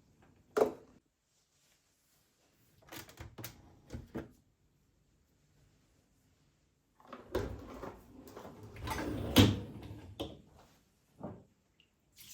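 Cupboard doors and drawers opening and closing with household handling: a sharp knock about half a second in, a few softer knocks a few seconds later, then several seconds of rummaging and clattering with one loud knock, and a last short knock near the end.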